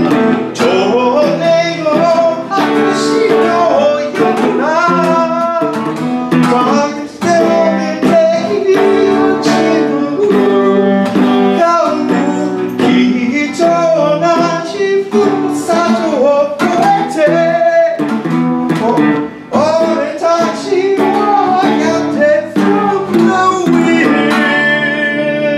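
Electric guitar and acoustic guitar playing a rock song together while a man sings in Japanese. Near the end they land on a held chord that rings on.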